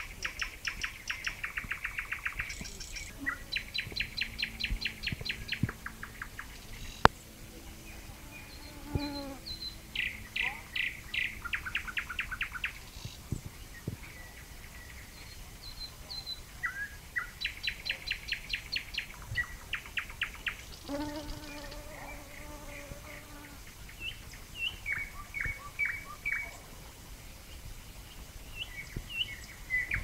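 Nightingale singing: phrases of fast repeated notes and trills, each a couple of seconds long, with short pauses between them. A single sharp click about seven seconds in.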